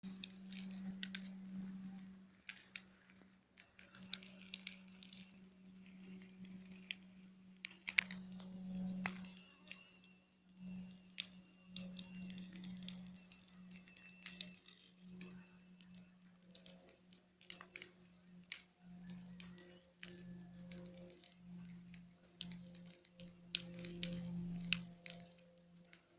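A low, steady droning hum from the sky, of unknown origin, that swells and fades in strength, with many sharp clicks and ticks scattered over it.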